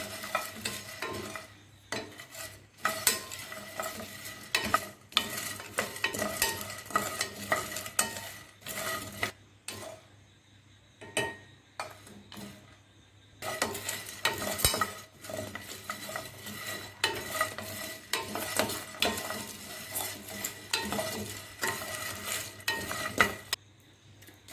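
A spatula stirring and scraping whole spices dry-roasting in a pan, a steady run of irregular scrapes and clicks, with a pause of about three seconds near the middle.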